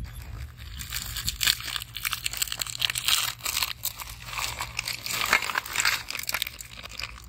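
Plastic cookie-packet wrappers crinkling and rustling as they are torn open and emptied, with the cookies sliding and clattering out onto the heap in the tray.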